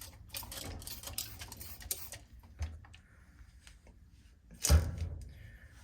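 Trigger spray bottle being squeezed repeatedly: a quick run of short spritzes in the first two seconds, then one louder burst nearly five seconds in.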